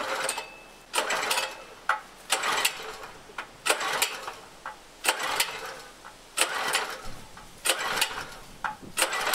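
Small single-cylinder gasoline engine being pull-started by its recoil cord: about eight pulls, roughly one every second and a half, each a short whirring crank that never catches. The owner later puts the failure to start down to too little oil in the crankcase, apparently.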